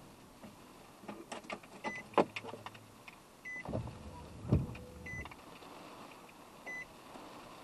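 Sounds inside a car: a run of clicks and knocks with a short motor whir, then a heavier knock about four and a half seconds in, while a soft chime repeats about every second and a half.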